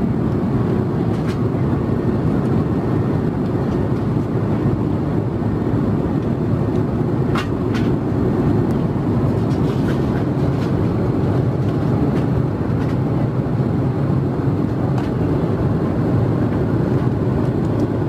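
Steady cabin noise inside an Airbus A330-300 in flight: the even rush of airflow and engines, heaviest in the low range, with two light clicks a little before halfway.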